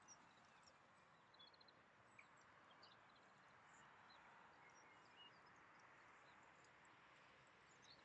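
Near silence, with faint, scattered high chirps of songbirds over a steady soft hiss, and a quick trill of repeated notes about a second and a half in.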